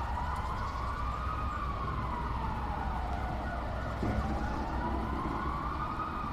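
A siren wailing slowly up and down, two long rises and falls, over a low steady rumble.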